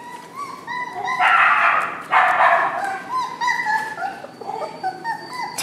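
Kai Ken puppies and dogs at play: short, high yips and whines repeated over and over, with two louder, harsher barks about a second and two seconds in.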